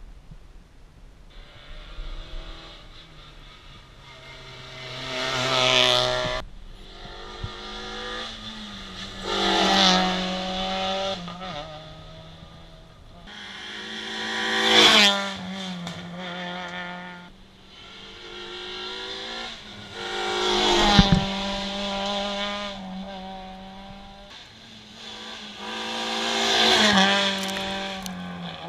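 Peugeot 206 rally car passing at speed five times, the engine note climbing as it accelerates past and then breaking off as it goes by.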